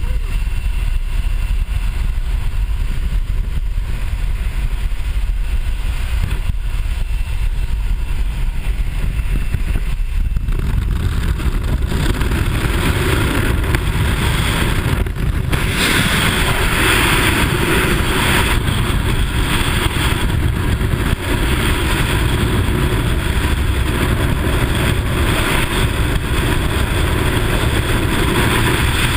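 Light aircraft engine and air rushing past the open jump door. About halfway through, after a brief dip, the jumper exits and it turns into the steady rush of freefall wind over the camera's microphone.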